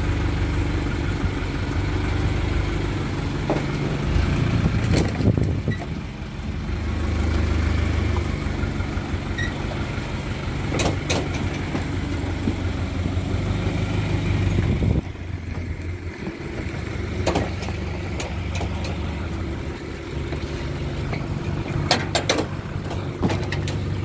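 Crane truck's engine running steadily, with a few sharp metallic knocks; it gets quieter about two-thirds of the way through.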